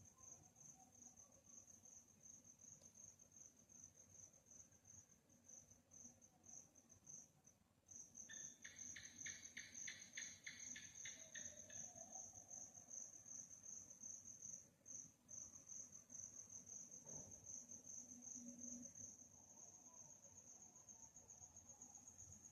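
Crickets chirping at night: a steady, high-pitched pulsing trill. From about eight to twelve seconds in, a second, lower-pitched insect call joins with regular chirps, about three or four a second.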